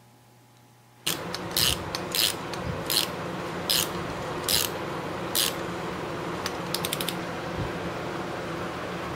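Ratchet wrench clicking in repeated strokes as the bolts of a turbocharger's compressor housing are tightened, starting about a second in, followed later by a quicker run of light clicks.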